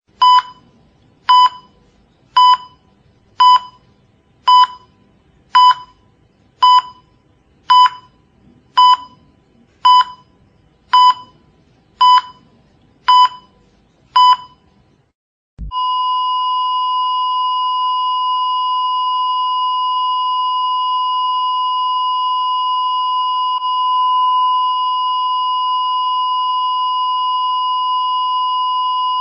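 Heart monitor sound effect: short electronic beeps about once a second, like a steady pulse near 60 beats a minute. About fifteen seconds in they give way to one continuous flatline tone at the same pitch, the monitor's signal that no heartbeat is detected.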